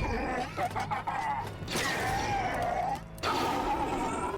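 General Grievous's raspy, electronically processed vocal noises: wavering, voice-like growling sounds without words. One starts about two seconds in and breaks off near the three-second mark, and another follows at once.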